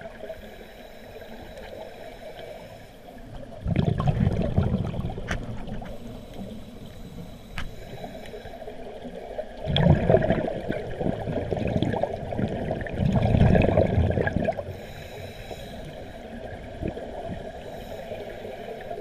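A scuba diver's exhaled bubbles gurgling underwater from the regulator, in three louder low bursts about every three to six seconds, with a low hiss between them. There are a couple of faint sharp clicks as well.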